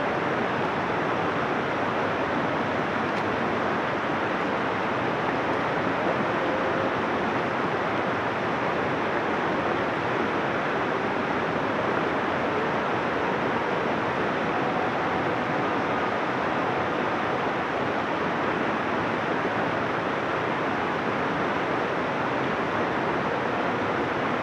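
Shallow, fast-flowing river rushing over rocks: a steady, even rush of white water.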